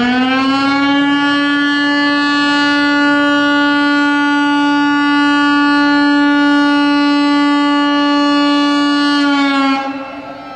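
Fire-alarm siren sounding loud. Its pitch jumps up at the very start, holds one steady tone for over nine seconds, then drops back to a lower tone near the end. It is the signal that a fire has broken out.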